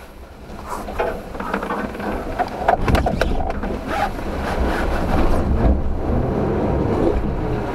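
Suzuki Jimny's engine working hard under load as it climbs a steep rock step, heard from inside the cabin; the rumble rises about a second in and stays loud. Sharp knocks come around one and three seconds in as the wheels and underside meet the rock.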